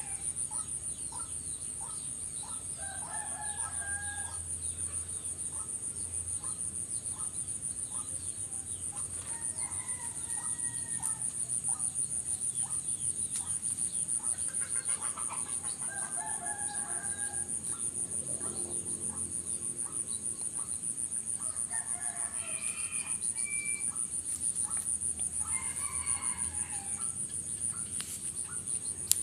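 Roosters crowing about six times, a few seconds apart, over a steady high-pitched whine, with soft regular ticking in the first half.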